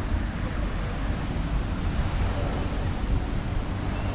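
Steady outdoor city noise: an even rushing hiss over a low rumble of road traffic.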